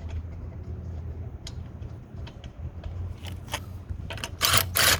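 Cordless impact driver firing in short bursts about four seconds in, the loudest lasting about half a second, over a steady low hum.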